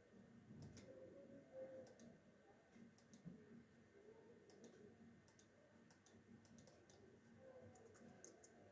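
Faint computer mouse clicks, scattered one or two at a time, over near silence.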